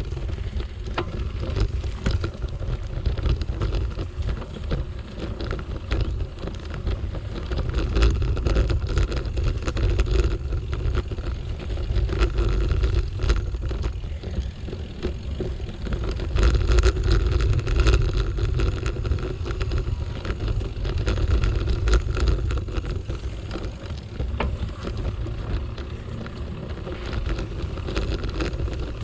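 A bicycle rolling along a dirt path, heard through a loosely mounted GoPro: a steady low rumble with many small rattling clicks from the loose camera mount.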